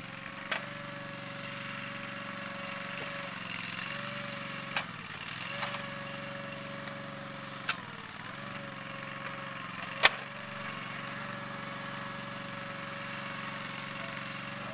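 Toro Dingo compact utility loader running steadily while trenching, its engine note sagging briefly twice, around five and eight seconds in. A few sharp clicks cut through, the loudest about ten seconds in.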